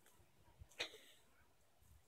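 Near silence, broken once, a little under a second in, by a single brief sharp click.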